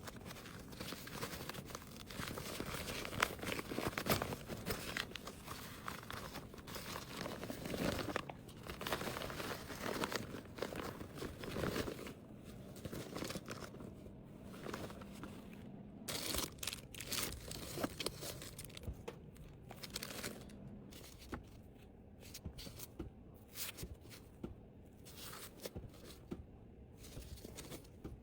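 Plastic packaging crinkling and rustling as items are handled and packed, with many small clicks and taps; busiest in the first half, then more scattered.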